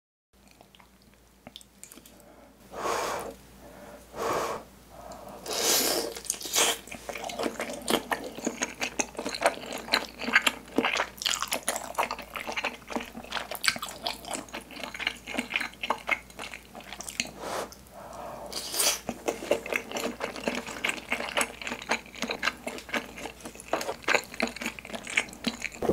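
Close-miked wet chewing and biting of soft skewered Korean fish cakes (eomuk) soaked in broth, a rapid run of small squishy clicks. A few longer wet bursts stand out about three, four and six seconds in and again near the end.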